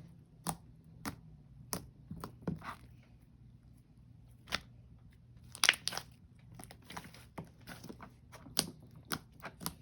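Freshly made fluffy white-glue slime being squeezed and stretched by hand for ASMR, giving irregular sticky clicks and pops, several in quick succession about halfway through.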